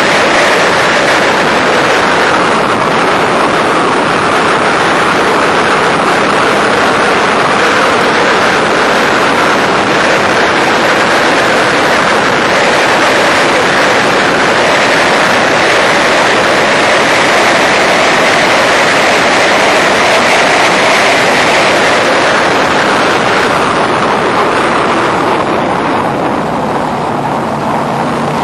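Onboard sound of a Factory Five Racing Challenge car, its Ford V8 held at full throttle down a long straight, mixed with heavy wind rush over the open cockpit. Near the end the sound drops away as the driver lifts off and brakes hard for a corner.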